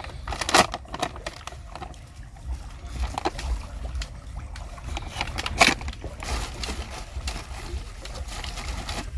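Foil bait packet and plastic bag crinkling and rustling as fishing-bait powder is poured and then mixed by hand, with two sharp crackles, about half a second and five and a half seconds in. Small waves lap against the rocky shore underneath.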